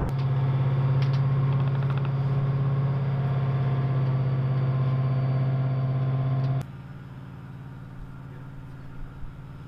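Diesel engine of a tracked armored vehicle idling: a loud, steady, low drone. About two-thirds of the way through it cuts off abruptly to a quieter, steady engine hum.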